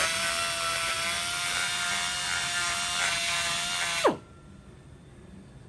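Die grinder with a carbide burr running at high speed while porting the aluminum cylinder head of a 6.7 Powerstroke near a valve seat. It runs steady with a high whine for about four seconds, then is let off, winds down in pitch and stops.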